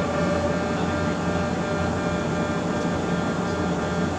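Stationary Yoro Railway 620 series electric train, its onboard equipment giving a steady hum with several held tones.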